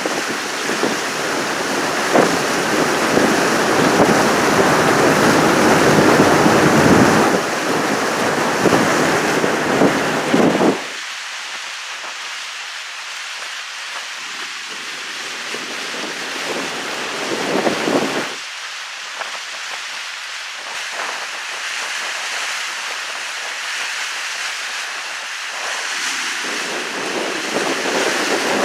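Steady rushing noise, loud for the first ten seconds, then cutting off abruptly to a thinner hiss, with another short surge about two-thirds of the way through.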